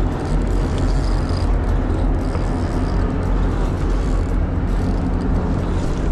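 Boat engine running with a steady low drone, under a wash of wind and water noise.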